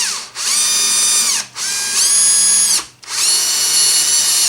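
Cordless drill running in reverse with a small left-hand cobalt drill bit, starting a hole in a broken soft-metal tip. The trigger is pulled in short bursts of about a second each, three of them after one that ends just after the start; each time the motor whine rises as it spins up and falls as it stops.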